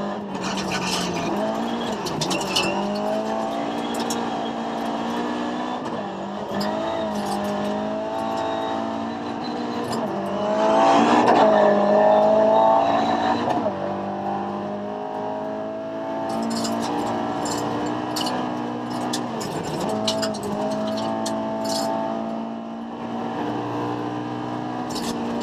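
Ford Escort RS2000 rally car heard from inside the cabin, driven hard on a gravel stage: the engine revs up and drops in pitch at each gearshift, several times over, and is loudest about ten to thirteen seconds in. Short clicks and rattles of gravel striking the car come through now and then.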